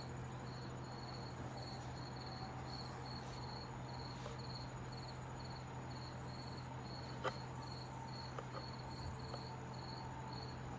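An insect chirping steadily at a high pitch, about two chirps a second, over a low steady hum. There is a single sharp tap about seven seconds in.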